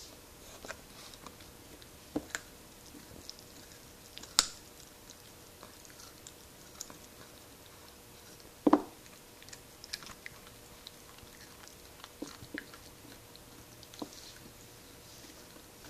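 Corgi puppy chewing and crunching a raw carrot: irregular crisp crunches and clicks, with two louder crunches about four and nine seconds in.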